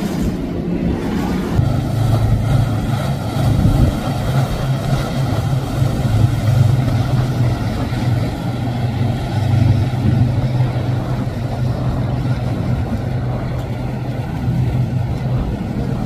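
Motorboat running at speed through rough water. A steady low engine drone comes in a couple of seconds in and holds, over the rush of spray off the hull.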